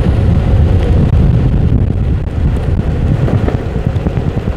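Loud, gusty wind buffeting the microphone of a phone carried on an electric skateboard riding at about 15 to 16 miles per hour, a fluttering low rumble.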